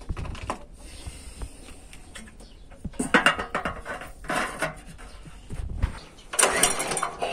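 Toyama walk-behind tractor's four-stroke petrol engine being pull-started: near the end the recoil starter is yanked once, cranking the engine for under a second without it catching. Before that, two short scraping, rattling sounds of hands working on the engine.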